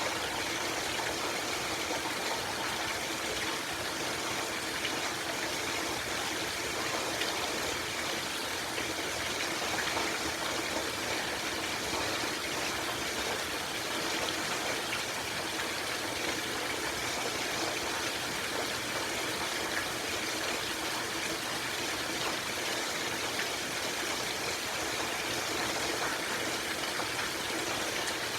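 Heavy rain falling in a steady, even, loud rush.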